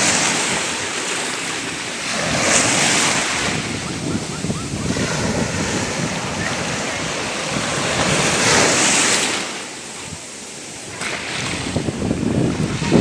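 Sea waves breaking and washing in, with a wave surging in twice, about six seconds apart, and a short lull near the end before the next one builds.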